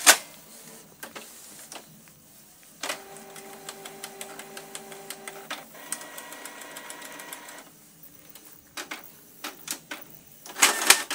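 Canon PIXMA MP287 inkjet printer running a colour test print: a few clicks, then a steady motor whine for about three seconds that changes to a higher whine for about two more, then a run of clicks and knocks near the end. The printer is working normally again, its P10 error cleared by replacing the R301 resistor on the mainboard.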